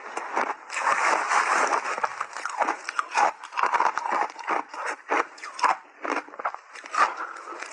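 Close-up crunching and chewing of mouthfuls of shaved ice, an irregular run of crisp crunches that is thickest about one to two seconds in.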